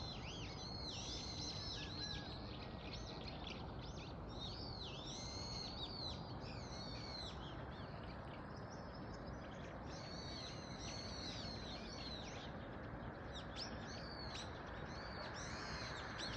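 Small birds chirping and twittering, many quick high calls overlapping in several spells with short lulls, over a steady low hiss.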